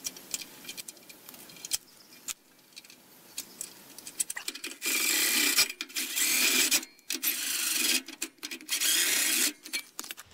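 A few small metal clicks as bolts are fitted through the steel bracket by hand, then a cordless power driver spinning a socket in four bursts, the first about two seconds long and the rest shorter, running bolts in to fasten a bracket to the sawmill's frame rail.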